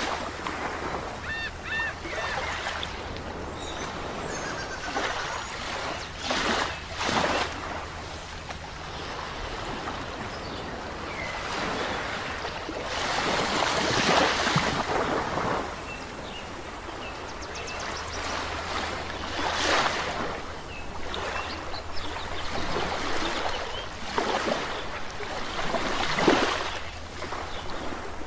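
Sea waves washing onto a shore, the surf swelling and falling every few seconds, with a few faint bird chirps over it.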